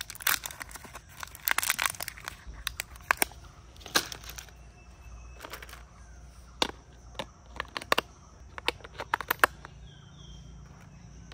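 Crinkling and tearing of a plastic battery blister pack as batteries are pulled out, then a series of sharp clicks as they are pressed into the plastic battery compartment of a toy telephone.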